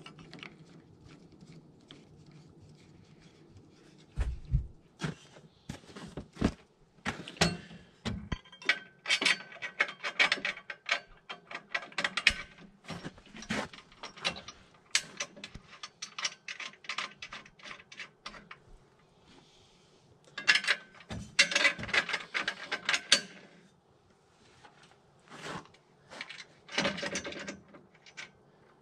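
Hand assembly of a steel sawmill frame: scattered metallic clicks and a few low knocks, broken by several bursts of rapid ratchet clicking.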